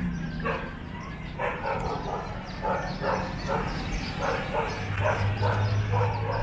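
A dog barking repeatedly, about two to three short barks a second.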